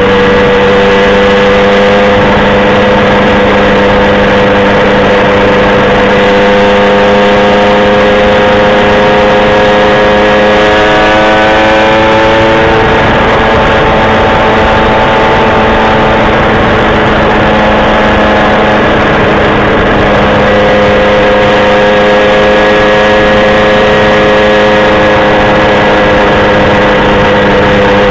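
A vehicle engine running under way, loud throughout: its note climbs slowly for about twelve seconds, then drops away, and a steady engine note returns about twenty seconds in. A constant low hum sits underneath the whole time.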